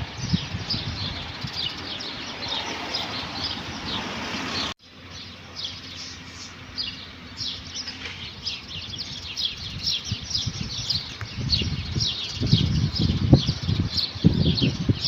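Many small birds chirping continuously in short, quick falling notes, a flock calling together. Under them runs a low, irregular rumbling noise that comes in bursts and grows stronger near the end. About five seconds in, all the sound cuts out for an instant and starts again.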